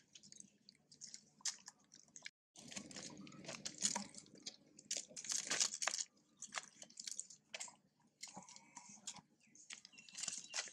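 Irregular close crunching and crackling from long-tailed macaques, short uneven clicks with a brief silent gap a little over two seconds in.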